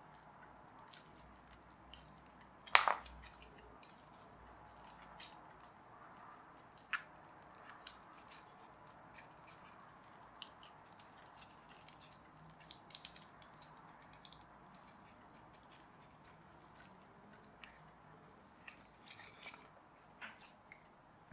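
Small clicks, taps and light scraping as the pieces of a pull-back toy plane kit are worked and pushed together by hand and with a small screwdriver, with a sharp click about three seconds in and another about seven seconds in.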